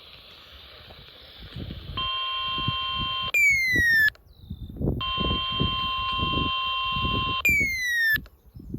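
Electronic alert siren: a steady high multi-tone alarm held for a second or more, then a quick loud falling sweep, repeated twice, starting about two seconds in. Faint low knocks sound underneath.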